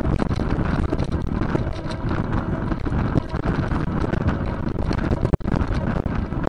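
Wind buffeting the microphone of a bicycle-mounted camera while riding, with constant small knocks and rattles from the road. The sound cuts out for an instant about five seconds in.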